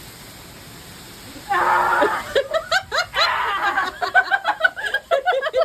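Steady rain hiss, then about a second and a half in a person lets out a sudden loud shriek and breaks into rapid, repeated laughter.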